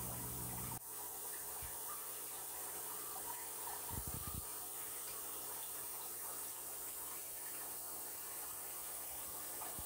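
Steady hiss of running water in an aquarium tank. A low hum cuts off suddenly about a second in, and a few soft low thumps come around four seconds in.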